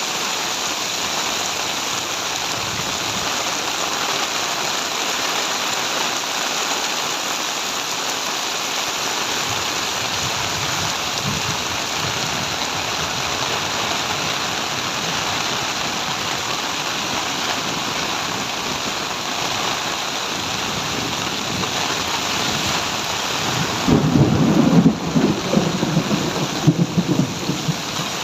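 Heavy rain pouring steadily. Near the end a sudden, louder rumble of thunder breaks in and rolls on for a few seconds.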